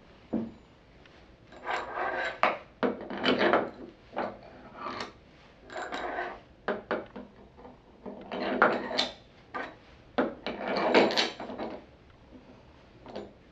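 Long steel bolts with washers being picked up off a table and slid through the corner holes of a plexiglass test cell: a run of short metal scrapes, clicks and clinks, loudest about two-thirds of the way in.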